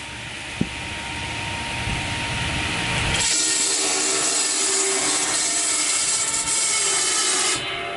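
Sawmill band saw running with a steady hum; about three seconds in its blade bites into a log fed along the table, and a loud, even hiss of sawing wood lasts until it stops just before the end.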